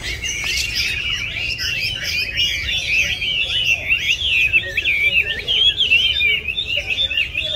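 Caged Chinese hwamei singing a long, unbroken, fast warbling song of quickly rising and falling notes.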